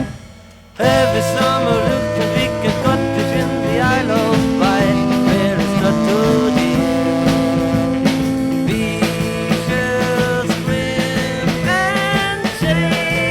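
A 1960s amateur beat band's studio recording: the previous song cuts off, a brief gap follows, and the band starts the next song about a second in. The band plays a full arrangement with sustained melody notes over a bass line and drums.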